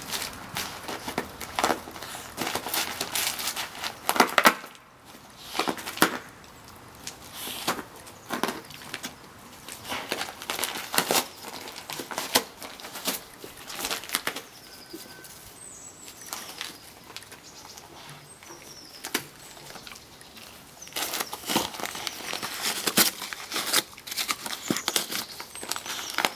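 A Labrador retriever tearing open and crinkling the paper wrapping of a present, in irregular rustles and rips.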